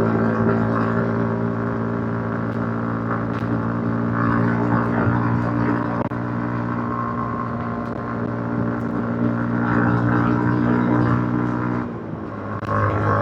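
Yamaha MT-15's stock-exhausted 155 cc single-cylinder engine running at steady riding revs. About twelve seconds in, the engine note drops briefly, then picks up again.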